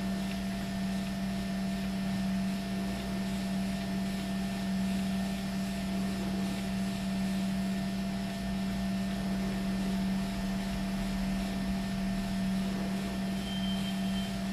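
Electric treadmill running at a steady speed: the motor's even low hum over the whir of the moving belt.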